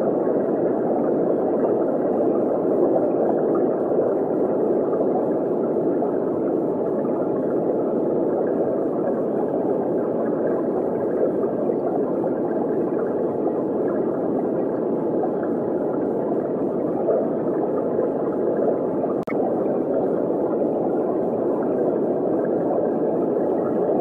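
Steady, muffled underwater water ambience: a dull, even rushing with no beat or melody, and a single brief click late on.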